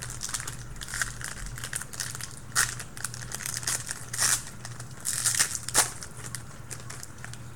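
Trading-card pack wrapper crinkling and tearing as it is ripped open by hand, in irregular crackly bursts, the loudest about two and a half seconds in and again near the five-to-six-second mark. A low steady hum sits underneath.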